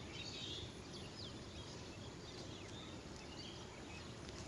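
Faint birds chirping now and then over a low, steady background noise.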